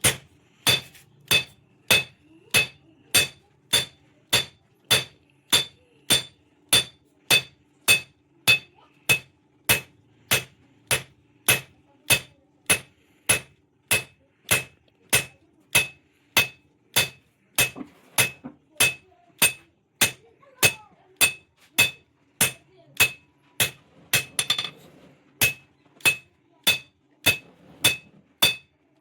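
Blacksmith's hand hammer striking steel on an anvil in a steady rhythm, just under two blows a second. Each blow rings with a bright metallic ping as the straight sickle blade is forged. One heavier, duller blow comes near the end.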